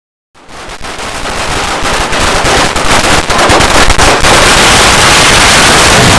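A string of firecrackers going off, a rapid crackle of many small bangs that thickens over the first two seconds into a continuous, loud crackle.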